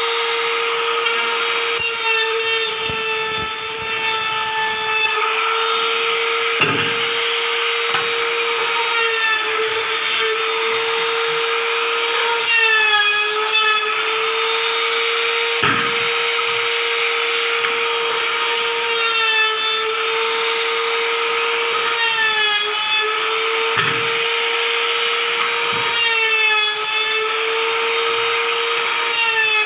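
Electric wood trimmer (compact router) running at a steady high whine, its pitch sagging briefly several times as the bit is pushed into the wood, with a hiss of cutting.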